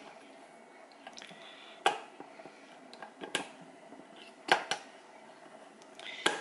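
Handheld manual can opener cutting around the lid of a steel can of kidney beans as its crank is turned, with a sharp click every second or so.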